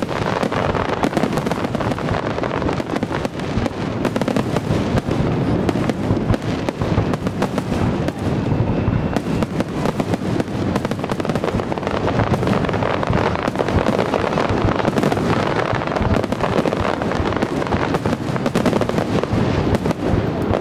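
Aerial fireworks display: an unbroken barrage of shells bursting, with many bangs overlapping every second.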